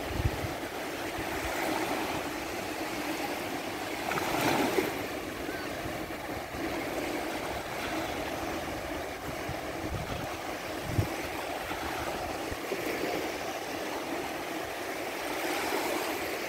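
Small sea waves breaking and washing up a sandy shore: a steady surf hiss that swells and fades, loudest about four seconds in, with a few brief low bumps.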